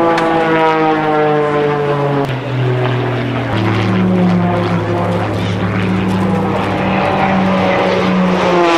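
Single-engine propeller race planes flying low past the listener. The engine and propeller note drops in pitch as one plane passes in the first two seconds and again as another passes near the end, with a steady engine drone in between.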